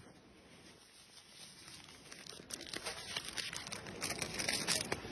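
Plastic snack-cake wrapper crinkling and tearing as a cake is unwrapped, faint at first and then building into dense crackling over the last couple of seconds.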